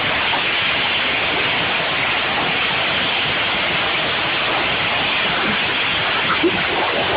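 Pressure-washer spray wand jetting water into a car's open door and cabin: a steady hiss of spray, with a brief knock about six and a half seconds in.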